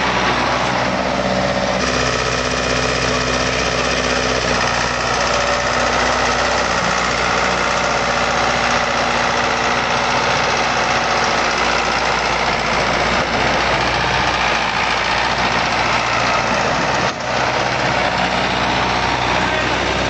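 Tractor engine running steadily, with a brief dip about three-quarters of the way through.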